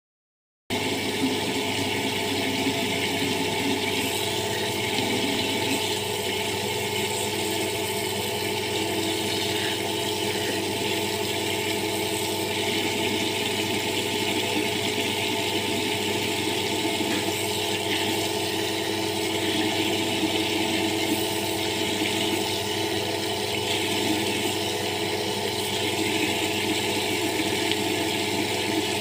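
Tap water running steadily from an outdoor wall tap and splashing over hands and into a plastic bucket below, starting suddenly just under a second in. A steady hum lies underneath.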